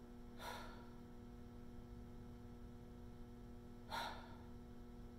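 A man breathing hard twice, about half a second and four seconds in, while straining against an isometric overhead press, over a steady low hum.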